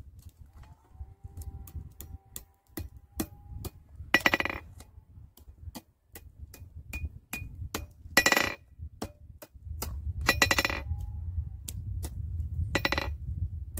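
Hand hammer striking hot 3/8-inch rebar on a steel anvil: a run of light taps at about two a second, with four heavier blows that ring out briefly. The blows are bending the hot rebar around into a loop.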